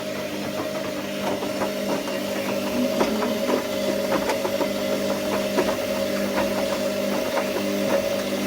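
Washing machine running: a steady motor hum with many small, irregular clicks and rattles.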